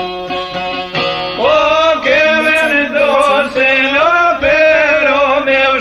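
Albanian folk song. A plucked string instrument plays short, quick notes, then about a second and a half in a male voice comes in over it, singing long, wavering held notes. The recording is dull, with no high treble.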